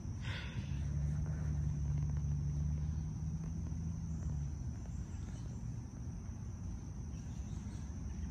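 Outdoor ambience of insects: a steady high-pitched drone, with a low steady hum underneath from about a second in until about four and a half seconds in.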